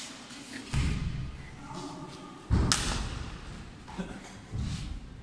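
A few dull thumps and knocks, the heaviest about two and a half seconds in, with faint voices in the background.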